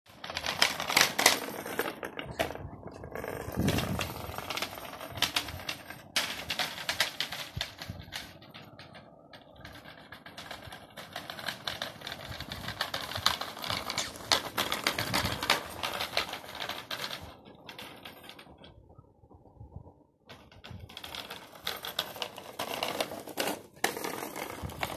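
A small two-wheeled wire-basket cart rattling as a dog pulls it over grass and concrete: a fast, uneven run of clicks and clatter that drops away briefly near the end.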